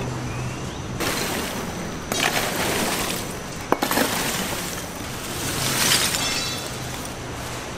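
Street-food stall clatter in a busy market: steady background noise that swells and fades, with a sharp double clack about halfway through.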